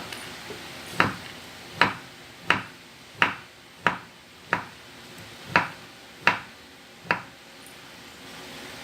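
Knife chopping tempe on a cutting board: nine sharp knocks, roughly one every 0.7 seconds.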